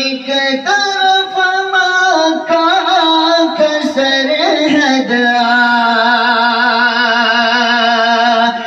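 A man's solo voice singing a naat, an Urdu devotional poem, unaccompanied into a handheld microphone: a few held notes, a wavering ornamented run in the middle, then one long held note from about five seconds in.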